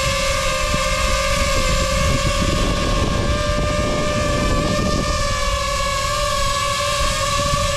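DJI FPV quadcopter hovering close by: its propellers give a steady, high, buzzing whine over a rough low rumble of prop wash buffeting the microphone.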